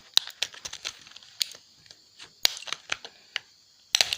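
Plastic laptop battery-pack casing being pried apart, giving irregular sharp clicks and small cracking snaps, with a quick cluster of louder snaps near the end.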